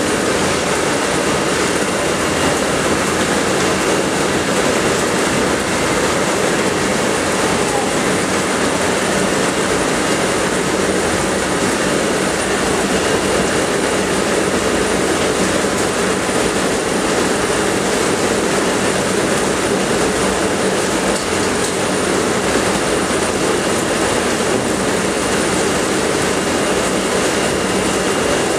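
Poultry processing line running: the overhead shackle conveyor's trolleys rolling along their rail with a constant rattling din, and a faint steady high whine over it.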